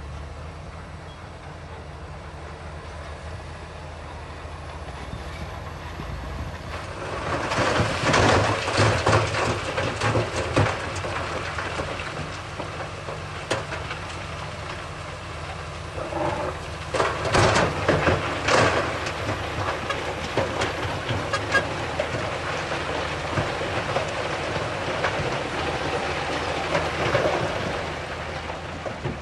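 Bulldozer's diesel engine running steadily, with two loud bouts of clanking and rattling from its tracks and the stone it is pushing, one about seven seconds in and another about halfway through.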